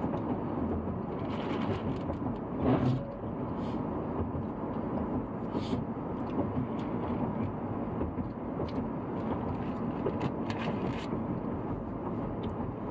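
Steady road and engine noise heard from inside a moving vehicle's cabin, with a few short knocks and rattles scattered through it.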